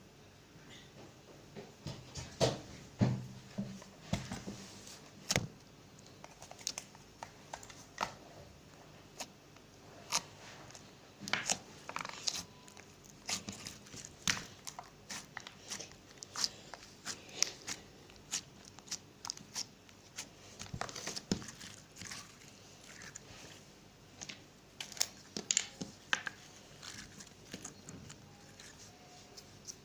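Slime being handled by hand: irregular sticky clicks, crackles and small pops, sometimes several a second, sometimes a second or more apart.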